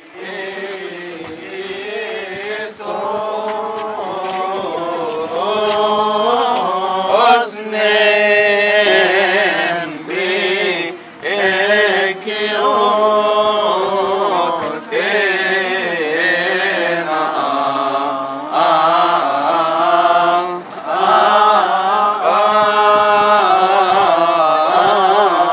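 A Coptic church hymn being chanted in long, wavering held phrases, with short breaks between phrases.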